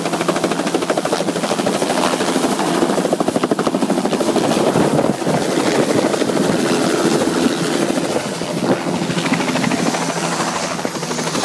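Crop-spraying helicopter flying low and close, its rotor blades beating in a fast, even chop that stays loud throughout.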